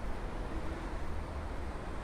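Steady low rumble of urban outdoor ambience: distant city traffic.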